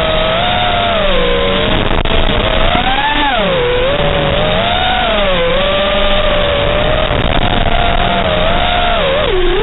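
5-inch FPV racing quadcopter's brushless motors (T-Motor 2207.5, 1750KV) whining over a steady hiss, the pitch swinging up and down with the throttle, rising about three seconds in and dipping sharply near the end.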